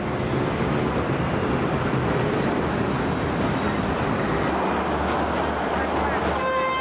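Steady rush of city road traffic noise. Shortly before the end a steady pitched tone with several overtones joins in.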